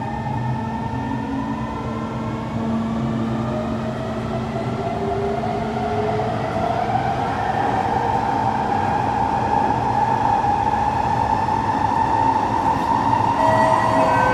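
Kawasaki C151 metro train's traction motors whining, several tones climbing steadily in pitch as the train accelerates. Beneath them is the rumble of the wheels on the rails, which grows gradually louder.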